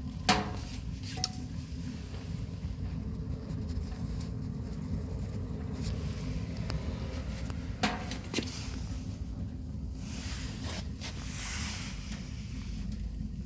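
A steady low rumble with a few sharp knocks and clinks, the loudest about a third of a second in and another pair near eight seconds.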